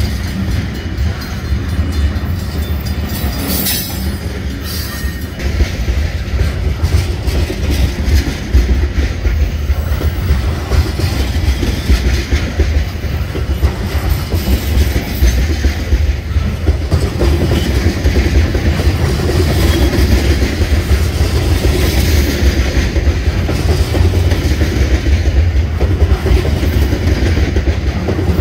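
Covered hopper cars of a freight grain train rolling past close by: a steady, loud rumble of steel wheels on rail, with wheels clicking over the rail joints.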